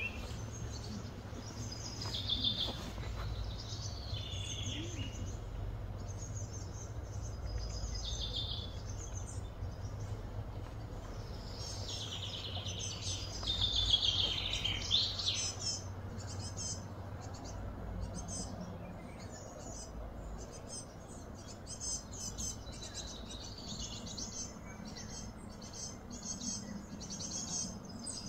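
Birds chirping and calling, busiest about twelve to fifteen seconds in, over a steady low hum.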